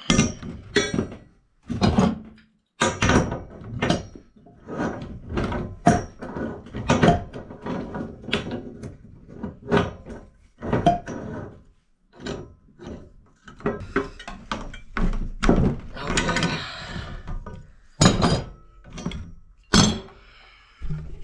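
Irregular metal clanks and knocks as galvanized pipe and a coupler are handled and fitted together for a sand-point well, with a longer rasping noise about sixteen seconds in.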